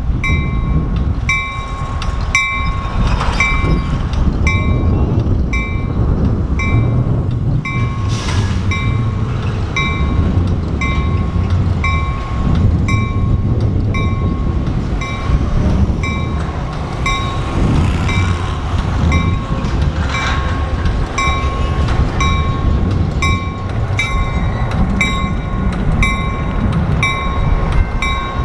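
A first-generation diesel locomotive's engine running as the lone unit moves slowly along, with a bell ringing steadily about once a second throughout.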